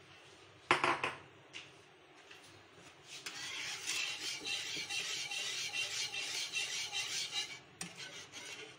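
Wire whisk scraping and rattling against a frying pan as it beats a thick milk and milk-powder mixture. A short clatter about a second in, then a few seconds of steady, rapid whisking strokes that stop near the end.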